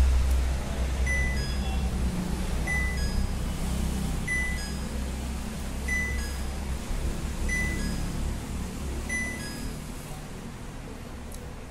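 Buzzer on an IFB top-load washing machine's control board beeping: six short high beeps about a second and a half apart, stopping near the end, over a low rumble that fades.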